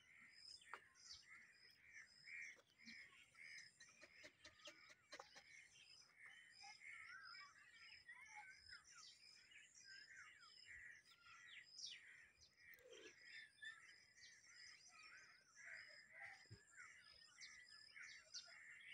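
Faint outdoor birdsong: several birds chirping and calling at once, with one high chirp repeated evenly about twice a second.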